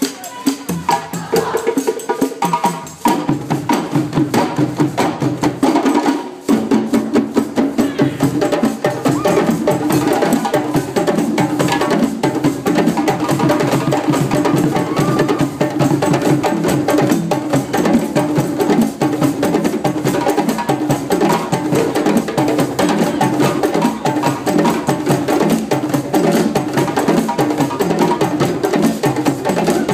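A group of djembe drums hand-played together in a fast, driving rhythm, dropping out briefly twice in the first seven seconds before the beat carries on unbroken.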